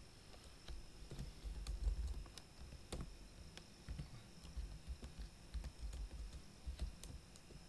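Computer keyboard being typed on: irregular, separate key clicks with short pauses between them.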